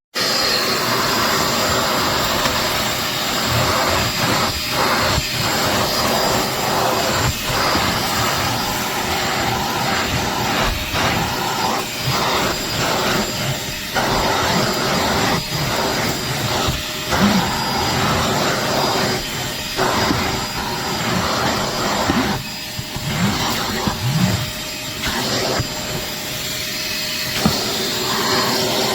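Portable wet/dry shop vacuum switched on and running: a steady rushing motor-and-airflow noise with a faint high whine, dipping briefly now and then as the airflow changes.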